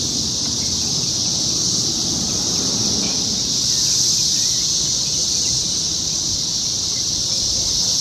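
A dense chorus of periodical cicadas: many males calling at once as a loud, steady, high-pitched drone that never breaks. The calling is the males' mating song.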